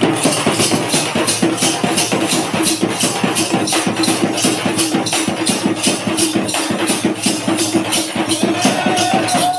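Folk drums beaten in a fast, even rhythm of about five strokes a second, with jingling over the beat and a steady held tone underneath.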